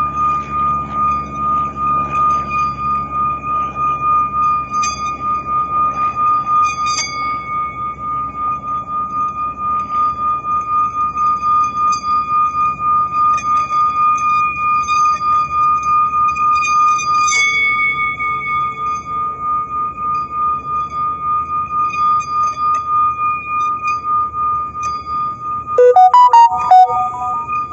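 Small brass singing bowl sung by rubbing a wooden mallet around its rim: one steady, high ringing tone with an overtone above it, wavering in loudness about twice a second. Near the end, a few loud knocks as the mallet chatters against the bowl.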